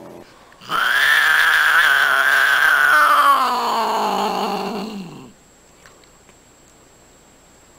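A cat's long drawn-out yowl, lasting about four and a half seconds and sliding down in pitch before it stops.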